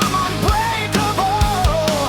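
Heavy metal song in an instrumental passage: a driving drum kit with regular kick and snare hits under distorted band backing, and a lead melody line that bends and slides in pitch. The track is AI-generated.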